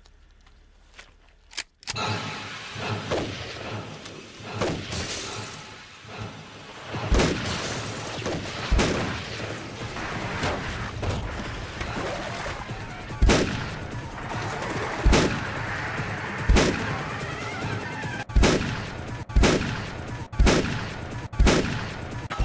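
Shotgun blasts fired again and again over an electronic dance track. The track cuts in suddenly about two seconds in, and near the end the shots come about once a second.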